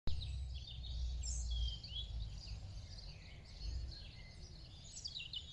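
Songbirds chirping and singing in short calls and trills, over an uneven low rumble that is strongest in the first couple of seconds.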